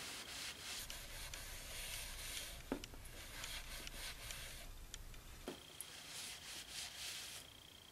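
A cloth shop rag rubbing the inside of a freshly honed, oily cast-iron cylinder bore, wiping out the honing oil and grit. It is a faint rubbing with a couple of small knocks.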